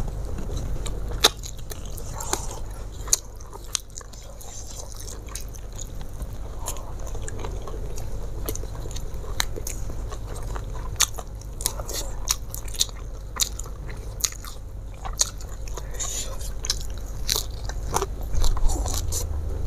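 Close-miked mouth sounds of a person eating by hand: chewing and biting with many sharp crunchy clicks, over a steady low hum.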